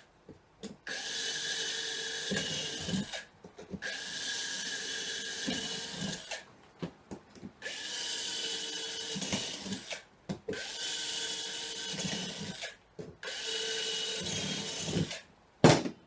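Cordless drill running in five bursts of about two to three seconds each, with short pauses between, as rivet holes are drilled for a latch on a road case. A sharp knock comes near the end.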